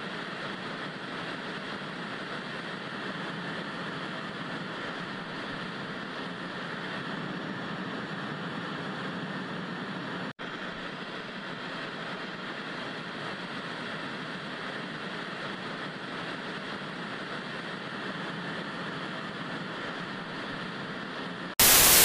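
Steady, even background noise like a low hiss behind an emergency-alert text screen, cutting out for an instant about ten seconds in. Near the end it gives way to much louder TV static.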